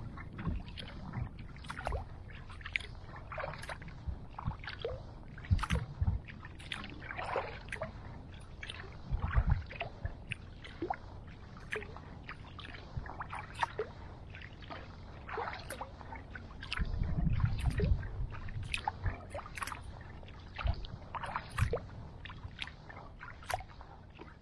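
Paddle strokes in calm water: irregular drips and small splashes and trickles from the blade, with a couple of short low rumbles, one near the middle and a longer one about two-thirds through.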